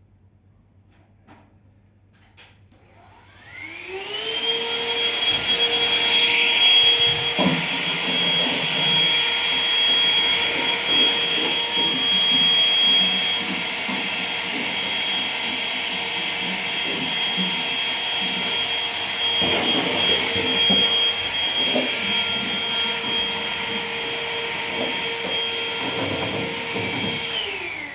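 Vacuum cleaner switched on about three and a half seconds in, its motor whine rising to a steady pitch as it cleans up loose polystyrene packing, with scattered clicks and rattles while it runs. It is switched off just before the end, the whine falling away.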